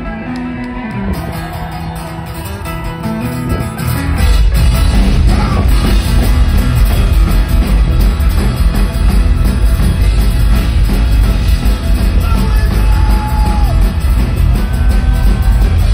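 Live band music from a banjo, acoustic guitar, electric guitar and drums over a stage PA. A quieter opening gives way about four seconds in to the full band playing loud, with heavy bass and drums.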